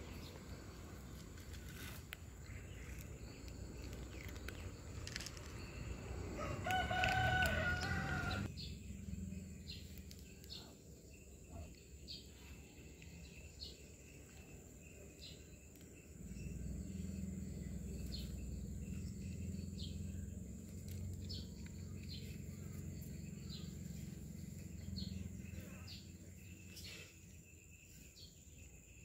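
One long animal call about seven seconds in, held at a steady pitch for about two seconds.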